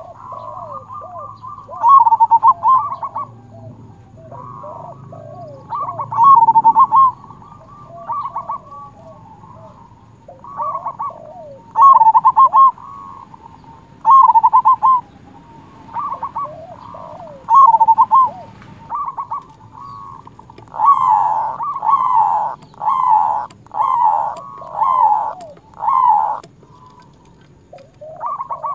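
Zebra dove (perkutut) cooing: a loud series of rolling, trilled coo phrases about every two seconds. About three-quarters of the way through they turn into a quicker run of coos.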